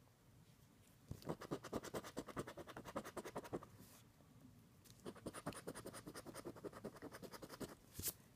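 A scratch-off lottery ticket being scratched in two bursts of rapid strokes, about ten a second, each lasting two to three seconds, with a single sharp click near the end.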